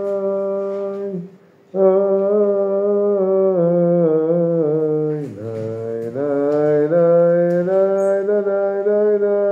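A man singing a slow wordless melody on 'na' syllables, holding long notes, with a short breath pause a little over a second in.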